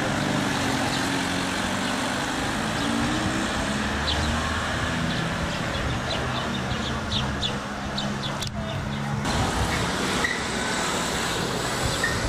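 Street traffic: a motor vehicle's engine running over steady road noise, its low drone dying away about nine seconds in.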